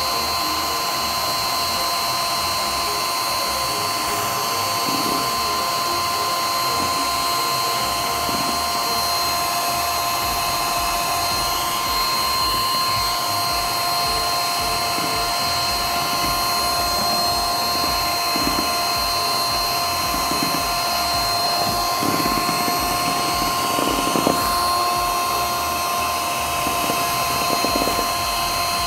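Scarlett 180-watt electric hand mixer running steadily with a high whine, its twin wire beaters whisking eggs into a froth.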